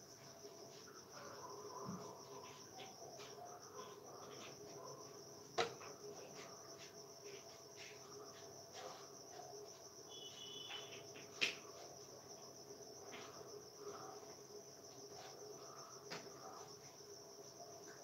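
Faint, steady high-pitched insect trilling, with scattered light ticks and two sharp clicks about six seconds apart.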